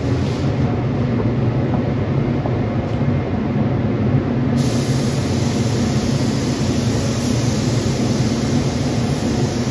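Gravity-feed paint spray gun spraying 2K primer: a steady hiss of air that switches on suddenly about halfway through and holds. Under it, a steady low machinery hum.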